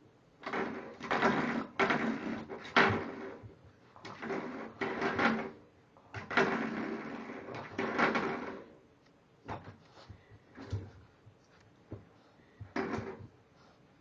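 A metal doorstop on a baseboard is batted and knocked over and over by a bulldog puppy, rattling and ringing in a quick run of bursts for about eight seconds, then only a few lighter knocks.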